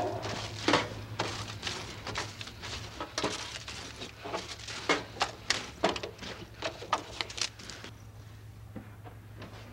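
Irregular light clicks and taps, spaced unevenly, over a steady low hum; they thin out about eight seconds in.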